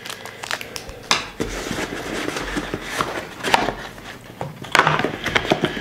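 Packaging being handled: plastic and cardboard rustling as a small bag of screws is put down and the box contents are shifted, with a few sharp clicks and knocks.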